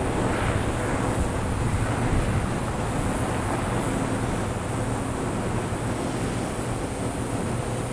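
Wind buffeting the microphone in a steady low rumble ahead of an approaching dust storm, with a faint steady hum beneath.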